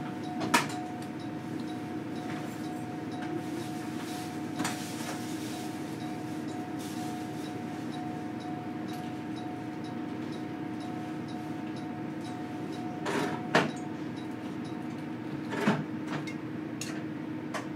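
Inside a JR Kyushu 813 series electric multiple unit standing still: a steady electrical hum with a constant higher tone, and a few sharp knocks and clicks from the car.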